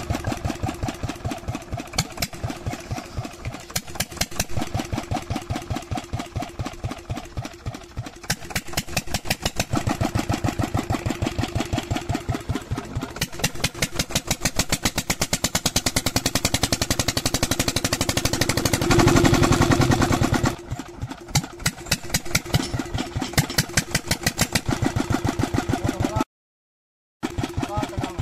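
Old single-cylinder stationary diesel engine, a Petter, running with a steady, rapid chugging of evenly spaced firing beats. About 19 seconds in it runs louder for a second or so, then settles back to its even beat. The sound cuts out completely for about a second near the end.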